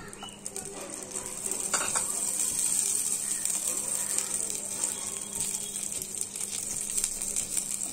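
Cashews and raisins frying in hot refined oil in a non-stick kadai: a steady, fine sizzle.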